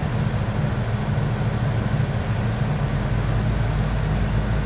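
Excavator's diesel engine running steadily, a constant low hum that holds one pitch.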